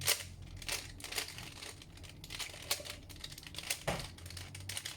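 Plastic Rubik's cube being turned fast in the hands, its layers clicking and clacking in an irregular run.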